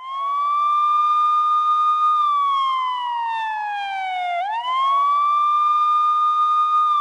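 Wailing siren sound effect. A single clear tone sweeps up and holds high for about two seconds, then glides slowly down, and swings back up about halfway through to hold high again.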